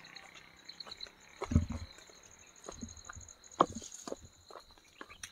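Footsteps on a rocky dirt trail, uneven steps with two louder ones about a second and a half and three and a half seconds in, over a steady high chirring of insects.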